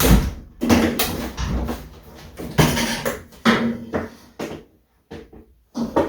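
Irregular clunks and clatters of a Samsung washing machine's drum and hanging shock absorbers being worked by hand, a dozen or so sudden knocks, some ringing briefly in the cabinet.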